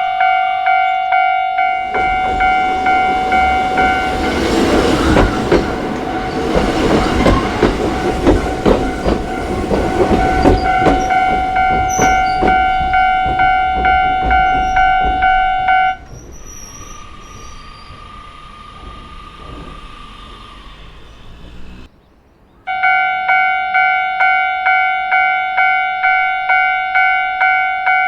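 Japanese railway level-crossing warning bell ringing about twice a second while a Choshi Electric Railway train runs through the crossing, its wheels clacking over the rail joints. The bell stops as the train clears, leaving the quieter sound of the departing train, then rings again near the end.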